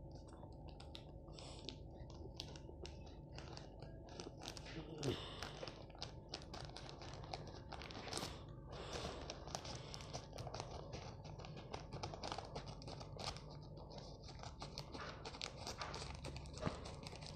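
Scissors snipping through a flexible plastic parcel mailer, with the crinkle and rustle of the packaging as it is handled: many faint, irregular snips and crackles.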